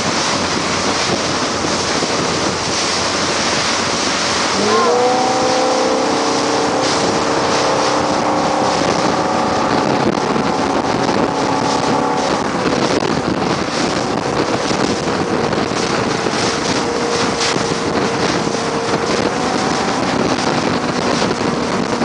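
Speedboat engine running at high speed while towing, under heavy wind buffeting on the microphone and the rush of the boat's wake. About five seconds in, the engine's pitch rises quickly and then holds steady.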